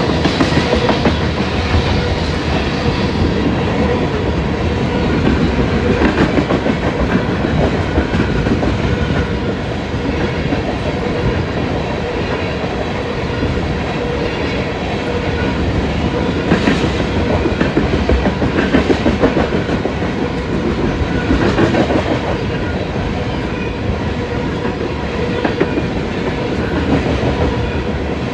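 A freight train's tank cars roll steadily past at close range: a continuous rumble of steel wheels on rail, with the wheels clacking over the rail joints throughout.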